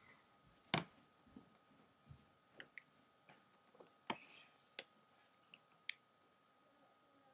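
A scattered series of small sharp clicks and taps, the loudest a little under a second in and again about four seconds in: the iPhone 5C's display assembly being pressed into its plastic back housing, its tabs snapping into place.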